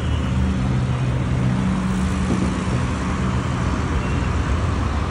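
Steady road traffic noise with a low, even hum.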